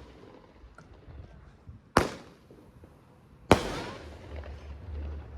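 Consumer firework cake going off: two loud bangs about a second and a half apart, each followed by a fading echo.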